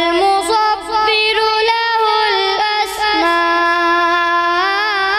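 A boy's high voice chanting Quran recitation (tilawat) in melodic style, holding long notes and gliding between pitches, with a wavering ornamented turn near the end.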